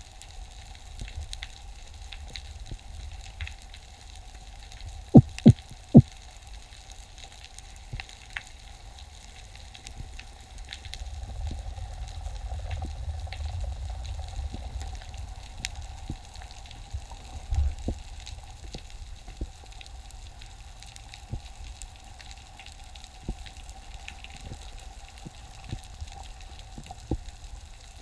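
Underwater ambience: a steady crackle of scattered short clicks over a low rumble, with three loud sharp knocks in quick succession about five seconds in.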